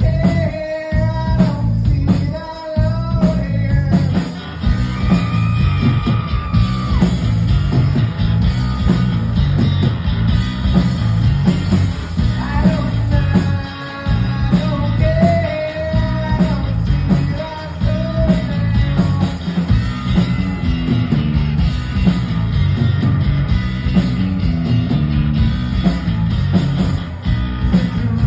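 Live rock band playing: electric guitars, bass and drums, with a man singing lead into the microphone.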